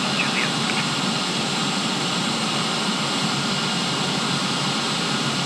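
Steady drone of a C-130's four turboprop engines and propellers, heard inside the cockpit during the final approach to landing.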